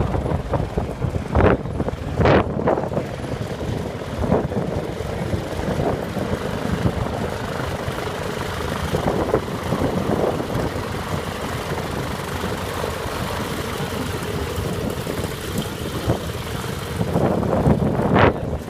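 Propeller airplane engine droning steadily, mixed with gusts of wind buffeting the microphone.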